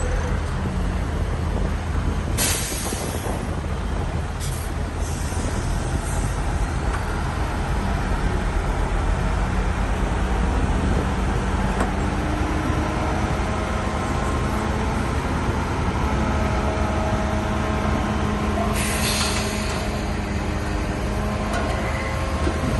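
Shantui bulldozer's heavy diesel engine running steadily under load, with two short high hisses, one a couple of seconds in and one near the end.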